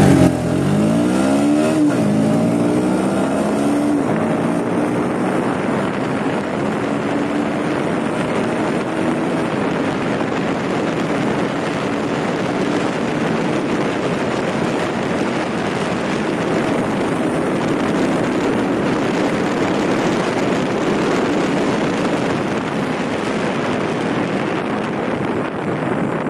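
Bajaj Pulsar NS125's single-cylinder engine accelerating hard from a standing start, its pitch climbing through each gear with upshifts about two and four seconds in. From about five seconds in, heavy wind rush on the microphone at speed drowns out most of the engine.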